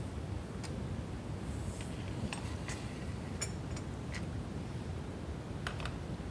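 Metal spoons clinking lightly against a ceramic plate, a handful of scattered clinks, over a steady low rumble.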